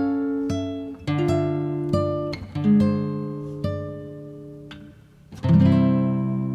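Background music on acoustic guitar: single plucked notes and chords that ring and fade, with a fuller strummed chord about five and a half seconds in that is left to ring out.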